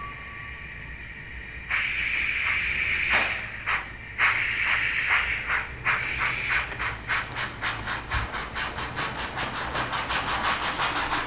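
Steam locomotive sounds from a model locomotive's DCC sound decoder. The tail of a whistle fades in the first second, steam starts hissing about two seconds in, then exhaust chuffs begin slowly and quicken to several a second as the engine gets under way.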